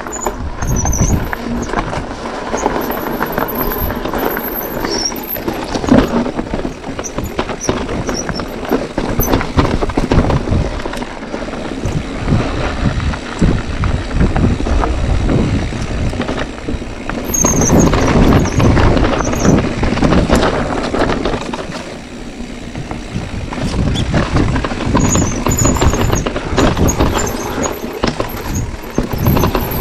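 Electric mountain bike riding downhill over gravel and rocky trail: tyres crunching and the bike rattling over stones and roots, with heavy low rumble on the microphone. Short high brake squeals come and go several times, about a second in, near the middle and near the end.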